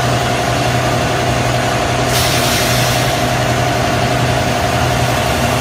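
Semi-automatic paper egg tray forming machine running: a steady mechanical hum with a constant drone. A burst of hiss comes about two seconds in and lasts close to a second.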